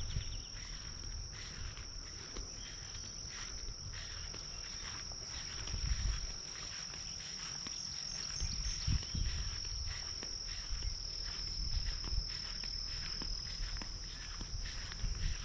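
Insects, crickets or similar, droning in one steady high-pitched tone, over a low rumble with irregular thumps.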